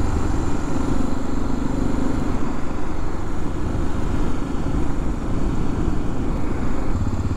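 A BMW F 700 GS motorcycle ridden at a steady pace, its parallel-twin engine running under a constant rush of noise.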